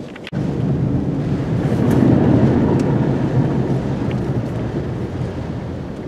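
Hurricane-force wind gusting over the microphone as a deep, noisy rumble, starting suddenly just after the start, swelling to its loudest about two seconds in, then slowly easing.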